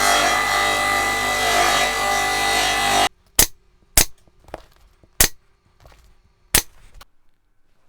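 A power tool runs steadily for about three seconds and cuts off suddenly; then a hand staple gun fires four sharp snaps, spaced about a second apart, fastening the new seat cover.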